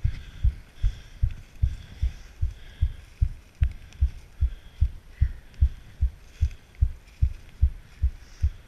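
Steady, evenly spaced low thuds, about two and a half a second: a runner's footfalls on a leaf-covered forest trail, carried as bumps through the body-worn camera.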